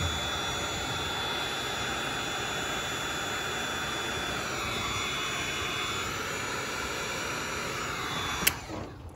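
Electric heat gun running, a steady rush of blown air with a faint high whine, as hot air is played over a spiral suction hose to soften it. It is switched off with a click about eight and a half seconds in, followed by quieter handling sounds.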